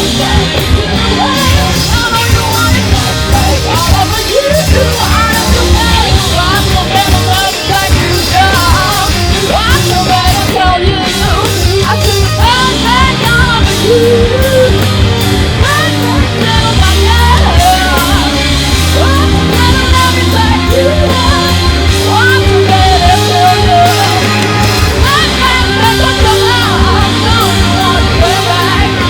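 Live rock band playing loud and without a break, with distorted guitars, bass and drums under a lead vocal.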